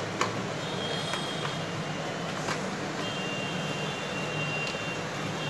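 Light plastic clicks of wire connectors being pushed onto and handled on TV circuit boards, the sharpest just after the start, over a steady background hum and hiss with a faint high whine.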